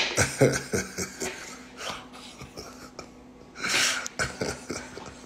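A man coughing and breathing: short low vocal sounds in the first second, then one louder breathy burst just before four seconds in.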